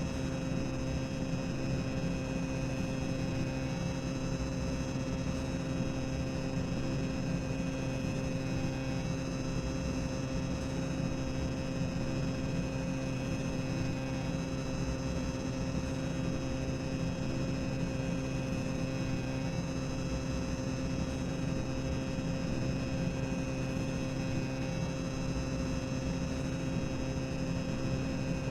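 Boiler-room ambience sound effect: a steady low machinery rumble and hum with a few constant tones on top, unchanging throughout.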